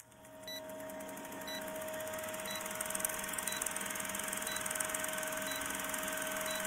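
Old-film countdown leader sound effect: a steady hum with the fast, even rattle of a film projector, and a short blip once every second as the numbers count down.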